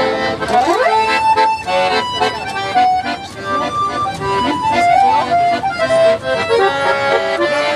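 Piano accordion playing a melody of short held notes over chords.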